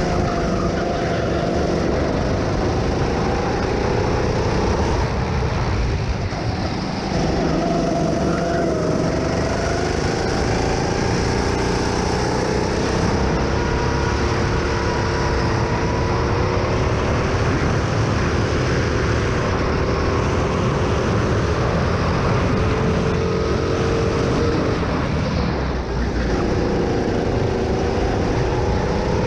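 Go-kart engine running hard, heard from the driver's seat, its pitch climbing and falling with the throttle, with a brief drop about a quarter of the way in and again near the end; a steady rush of tyre and wind noise runs underneath.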